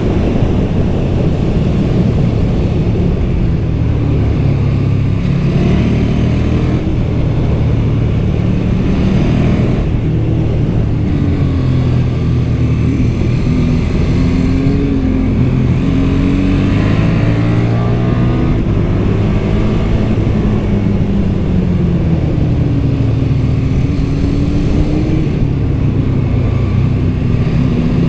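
KTM 1290 Super Duke R's V-twin engine through its stock exhaust, under way, its pitch rising and falling again and again as the rider accelerates, shifts and rolls off.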